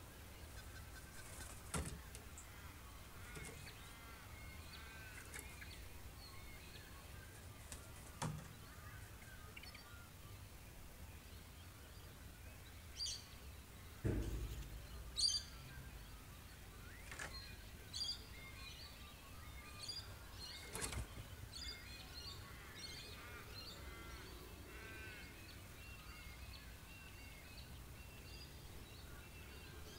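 Birds chirping and twittering faintly in the background, with a few soft knocks, the loudest a low thump about halfway through.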